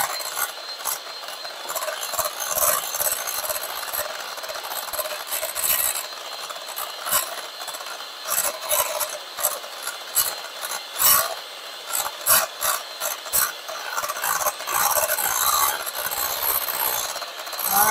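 Electric hand mixer running, its beaters whipping heavy cream and powdered sugar in a glass bowl as it thickens toward stiff peaks: a steady high motor whine with frequent clicks and rattles of the beaters against the bowl.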